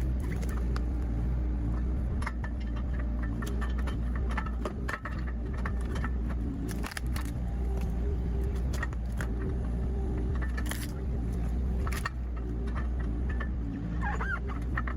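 Excavator engine running steadily with a low hum, with frequent sharp knocks, scrapes and cracks as its steel digging hook tears at soil and roots around a stump.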